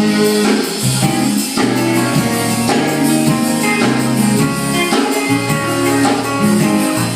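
Gospel music, instrumental: guitar playing over a steady beat with tambourine.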